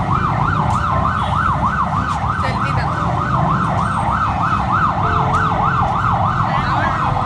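A yelp-style siren wail, rising and falling quickly about three times a second, over a steady low rumble.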